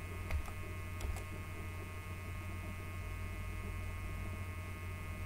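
Steady electrical mains hum on the recording, with a few short clicks about a third of a second in and again about a second in.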